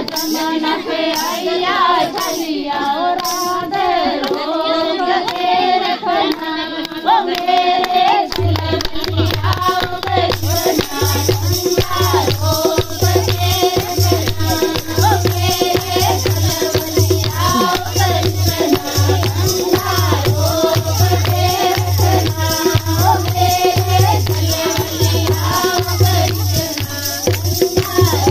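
Group of women singing a folk song with hand-clapping. About eight seconds in a steady, evenly repeating low drum beat joins, and a couple of seconds later a rattling jingle.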